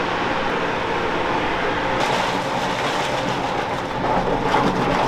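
Large industrial mixer stirring a tank of plastisol, a loud, steady machine hum and whirr, pretty loud, that shifts a little about two seconds in.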